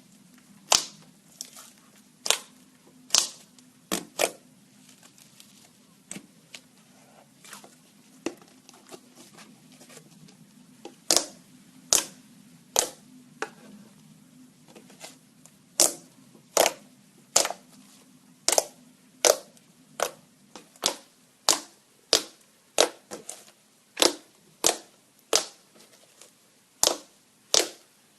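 Slime being pressed and worked, its trapped air pockets popping in sharp clicks, spaced out at first and coming about one to two a second from about halfway through. A faint steady low hum runs underneath.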